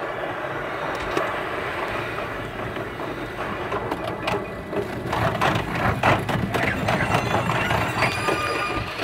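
Limited express train running, heard from inside the car and played back at 5.5 times speed: a dense rattling noise that slowly grows louder, with rapid clicks and knocks from about four seconds in.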